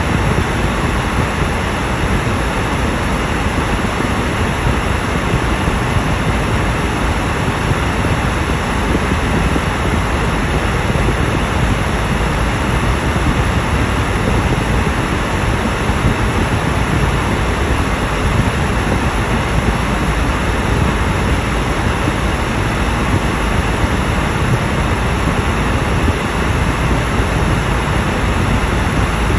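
Steady rushing road and tyre noise of a car cruising at highway speed, heard inside the cabin, with engine drone mixed in. It holds level and unchanging throughout.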